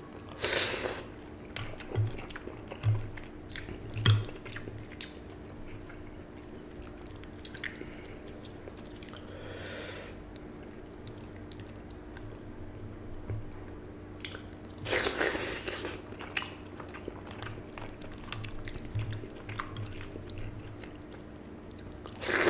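Close-up eating sounds of a man eating soaked rice (panta bhat) with mashes and fried fish by hand: wet chewing with scattered clicks and a few louder, short noisy bursts, over a faint steady hum.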